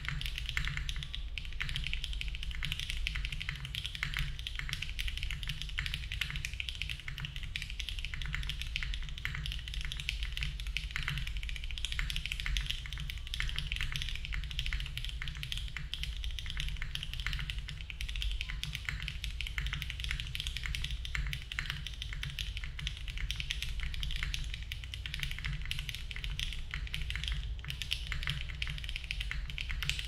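Continuous typing on a Cycle7 mechanical keyboard fitted with HMX Cheese switches on an aluminium plate with no foam, under GMK Parcel keycaps: a dense, unbroken stream of poppy keystroke clacks.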